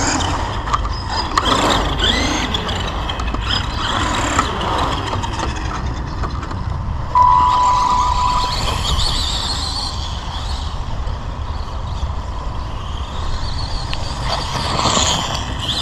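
Electric motors of radio-controlled Tamiya buggies whining, rising and falling in pitch as the cars speed up and slow across the grass. About seven seconds in, a steady high beep sounds for a little over a second.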